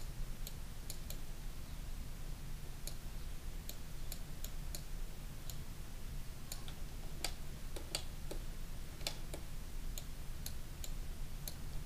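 Computer mouse clicking while sculpting on screen: about twenty faint, sharp clicks at irregular intervals, over a low steady hum.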